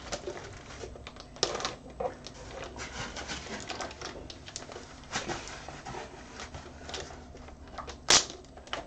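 Rustling and clicking of packaging and small parts from a power supply box being handled and sorted, with irregular clicks and a sharp louder click about eight seconds in.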